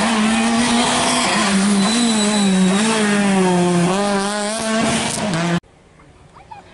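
Rally car engine running at high revs, its pitch rising and falling with the throttle and gear changes as it brakes and accelerates through a corner. The sound cuts off abruptly about five and a half seconds in, leaving only faint outdoor background.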